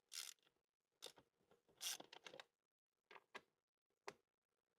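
Faint scattered clicks and scrapes of a hand tool undoing the bolts of a motorcycle's radiator guard, with a small cluster of them about two seconds in.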